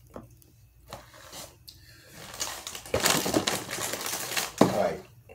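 Plastic snack packaging crinkling and crackling as it is handled: a few light clicks at first, then continuous crackling from a little over two seconds in, with one sharp, loud crackle near the end.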